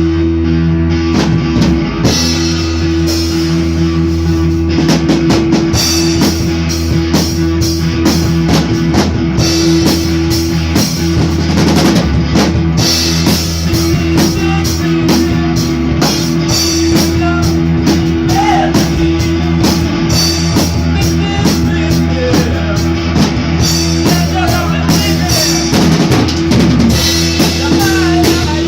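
Rock band jamming an instrumental passage, loud and steady: a drum kit with bass drum keeping a busy beat under guitar and bass.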